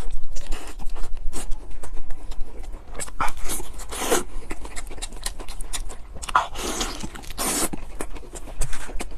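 A person eating fast and noisily: close, wet chewing and lip-smacking of spicy pork chop. Twice there are longer loud breaths or slurps.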